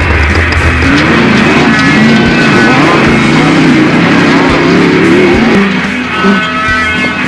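Off-road race car engine revving up and down in quick swings, mixed with rock music.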